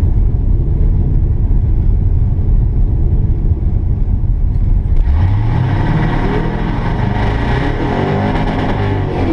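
Twin-turbo 6.0L LQ4 V8 in a Mazda B2200 pickup, heard from inside the cab, idling with a deep rumble. About five seconds in, the revs climb and then rise and dip, with a hiss over the top.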